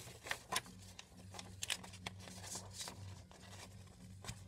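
Faint handling of paper worksheet sheets: scattered light rustles and taps over a steady low hum.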